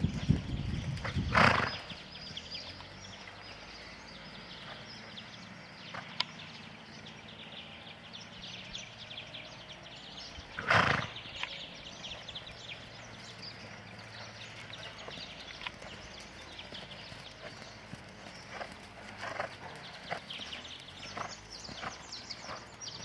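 A horse ridden at trot and canter on an arena's sand footing, its hoofbeats going on throughout. Two short, loud bursts of noise stand out, one about a second and a half in and one about eleven seconds in.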